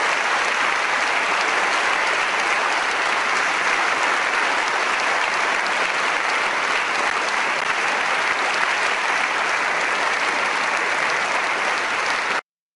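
Audience applauding steadily; the applause cuts off abruptly near the end.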